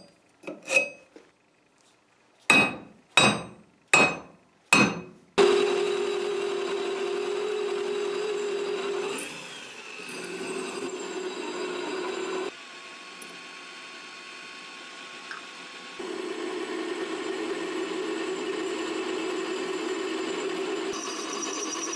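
Four sharp strikes on steel a little under a second apart, each ringing briefly, as the mounting-hole spots on the railroad-track anvil are marked. Then a bench drill press starts and runs steadily, its bit drilling a mounting hole into the steel rail; the running sound drops quieter for a few seconds near the middle and comes back up.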